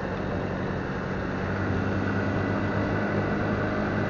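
Motorcycle engine running steadily while riding: a low, even hum over a steady rush of road and wind noise.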